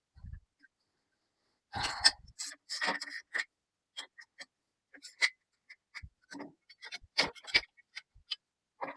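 Scattered, irregular clicks, light knocks and short scrapes of sheet steel and hand tools being handled during bench fabrication.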